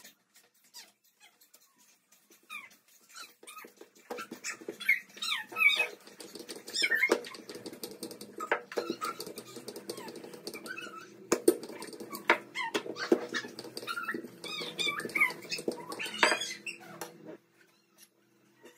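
A dog whining and whimpering in repeated high, wavering calls from about 4 seconds in until shortly before the end, over a steady low hum. Scattered knocks of a wooden rolling pin on the table come through as dough is rolled out.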